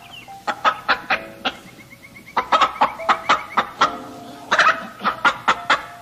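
Bantam rooster clucking in quick runs of short, sharp calls, about five or six a second, in three bursts.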